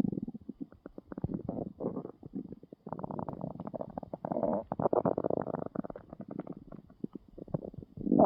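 An empty stomach growling with hunger: a run of short gurgles and clicks, with a longer rumbling stretch from about three to five and a half seconds in.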